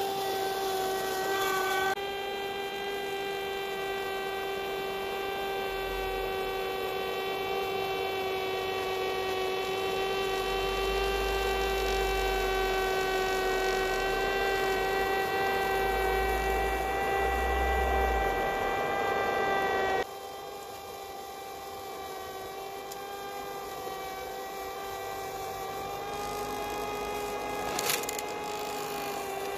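G-scale model rotary snow-blower train running through snow: its electric motors give a steady, high whine over the hiss of snow being thrown. The sound gets quieter about two-thirds in, and there is a short crackle near the end.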